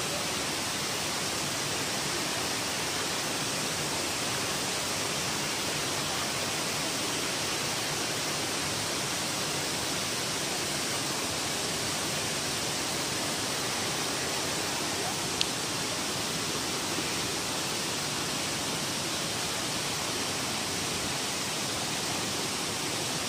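Steady rushing of water from a rocky stream among boulders, an even unbroken hiss, with one brief click about fifteen seconds in.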